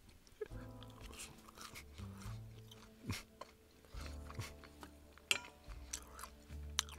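Quiet background music with long held notes, under faint chewing and crunching from someone eating, with a few sharp clicks.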